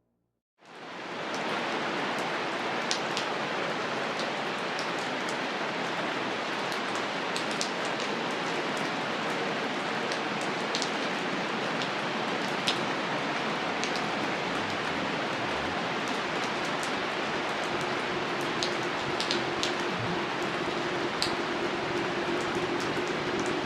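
Steady rain falling: a dense, even hiss with scattered sharp raindrop ticks, fading in quickly about half a second in after a brief silence.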